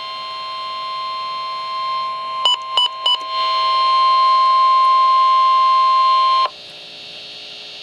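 NOAA Weather Radio 1050 Hz warning alert tone: one steady, loud beep-like tone that heralds a new warning. It is broken by three short blips about two and a half seconds in and cuts off suddenly about six and a half seconds in, leaving faint radio hiss.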